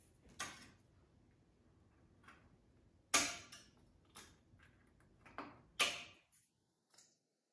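Hand-crafting noises at a moss wreath: a handful of sharp clicks and short rustles, the loudest two about three and six seconds in, as wired decorative eggs are pushed in among the moss and dried foliage.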